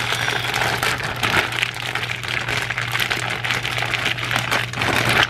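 Zip-top plastic bag of seasoned raw chicken being squeezed and kneaded by hand, the plastic crinkling and crackling in a dense, irregular stream, over a steady low hum.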